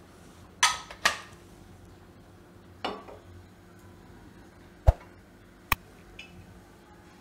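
A handful of separate clinks and knocks of steel kitchenware around a gas stove, two close together about a second in, one with a short ring near three seconds, and the sharpest near five seconds.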